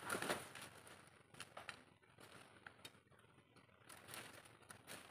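Faint, intermittent scraping and crackling of a hand tool digging in dry soil around taro plants, with a louder rustle in the first half-second and scattered small clicks after.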